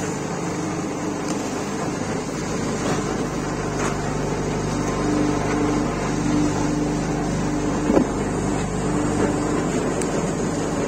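A steady machine hum runs throughout, with a few sharp knocks as concrete paver blocks are knocked out of plastic moulds and set down. The loudest knock comes about eight seconds in.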